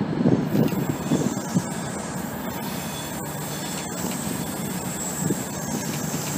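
Class 67 diesel-electric locomotive, with its two-stroke V12 diesel, running slowly into a station on curved track with its train, a low rumble under a high, steady wheel squeal that sets in about two seconds in.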